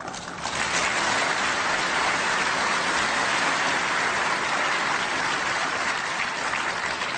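Large audience applauding, swelling over the first second and then holding steady.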